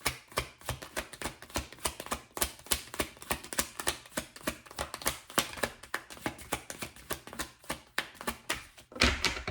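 Typing: a quick, irregular run of sharp key clicks, with a louder rustling burst near the end.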